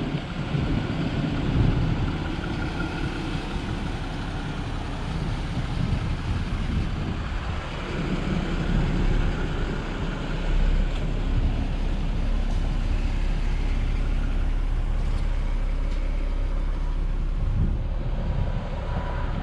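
Jeep Wrangler Rubicon driving, with a steady engine and road rumble.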